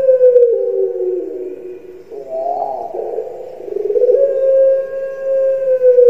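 Puter pelung dove (Streptopelia risoria) singing its long cooing call: a held coo that slides down in pitch, a short rolling warble about two seconds in, then another long held coo from about four seconds in that falls again near the end.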